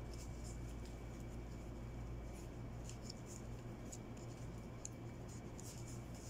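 Faint scattered crinkles and rustles of bouquet wrapping being handled, over a steady low hum.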